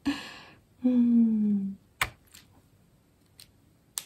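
A woman's short breathy sound, then a wordless hum about a second long that slides down in pitch. It is followed by a few sharp clicks, the loudest about two seconds in and another near the end.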